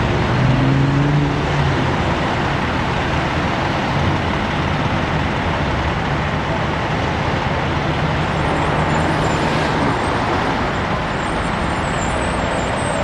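Steady road traffic noise with vehicle engines running. A low engine hum is strongest in the first second or two, then evens out into the general roar.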